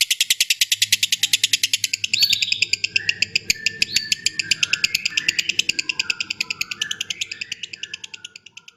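Pet lovebirds chattering: a rapid, even run of high chirps, about ten a second. Short rising squeaks and warbling calls join in from about two seconds in, and the sound fades near the end.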